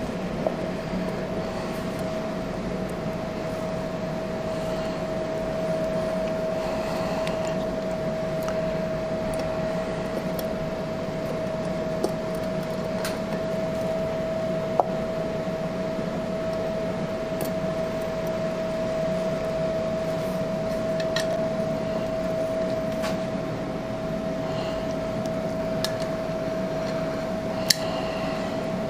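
A steady mechanical hum with a constant mid-pitched tone, with a few short, sharp metal clicks scattered through as a chrome motorcycle engine cover and its bolts are handled with a T-handle hex driver.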